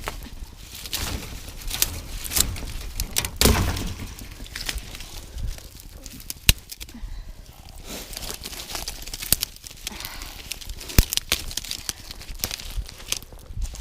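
Irregular sharp snaps and crackles of dry twigs and brush breaking, over steady rustling. Two cracks, one midway and one later, are louder than the rest.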